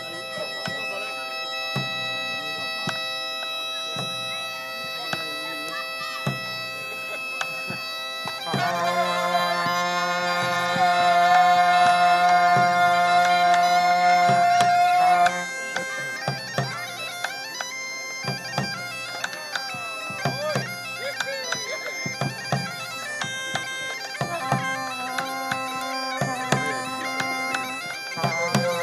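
Bagpipes playing a tune over a steady drone, louder for several seconds in the middle before settling back.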